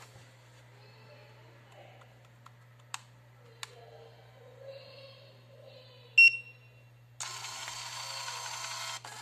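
GOOJPRT PT-210 58 mm thermal receipt printer: two small clicks as its buttons are pressed, a short high beep, then a steady whirring buzz as it feeds paper and prints its self-test configuration page.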